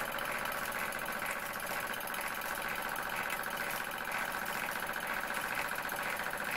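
Bowman M101 model stationary steam engine running steadily: a continuous hiss with a regular beat of about two a second.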